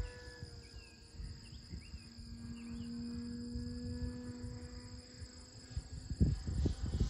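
Distant steady hum of a radio-controlled plane's electric motor and propeller overhead, swelling about midway, under a fast, high-pitched insect trill. A few short chirps sound in the first three seconds, and wind buffets the microphone in gusts near the end.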